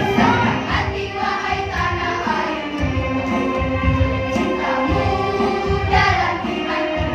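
A choir of elementary-school girls singing together in competition, holding long notes.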